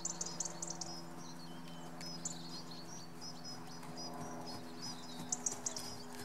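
Small birds chirping and twittering repeatedly, with quick runs of sharp high notes near the start and again about five seconds in, over a steady low hum.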